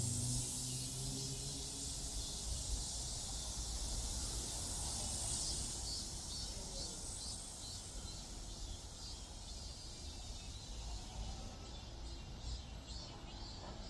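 Cicadas buzzing in a steady high-pitched drone, with a clear pulsing rhythm toward the end, over a low background rumble. A low pitched hum fades out in the first second or so.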